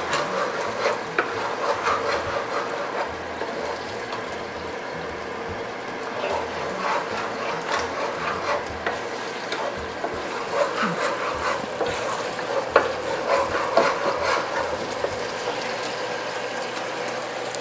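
Wooden spatula stirring a sauce of water, soy sauce and sugar simmering in a wok, with light scraping and tapping against the pan and a soft sizzle.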